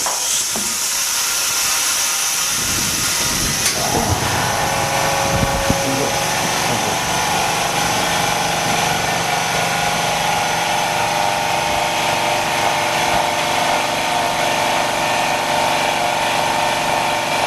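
Autoclave bubble removal machine and its air compressor running: a steady hiss of air starts at once, and a steady motor hum comes in about four seconds in and holds, as the chamber is pressurised to push bubbles out from under the OCA film.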